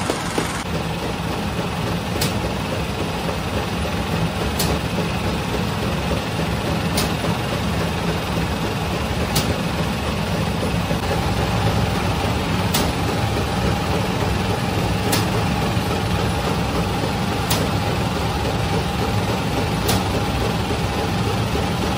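Conveyor bread oven and its machinery running with a steady hum and rush. A sharp click comes at even intervals, about every two and a half seconds.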